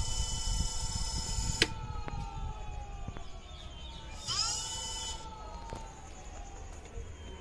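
Electric motor of an e-bike whining as it spins, its pitch sagging slowly. There is a sharp click about one and a half seconds in, and about four seconds in the whine surges up in pitch and then winds down again.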